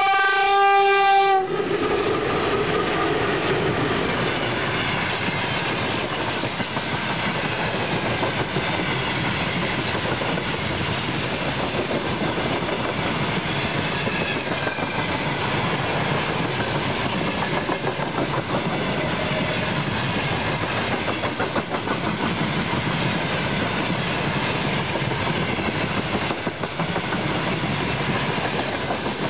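A VL11 electric locomotive's air horn (typhon) sounds one loud blast on a single note, cutting off about a second and a half in. The freight train's wagons then roll past close by at a steady level, their wheels running on the rails.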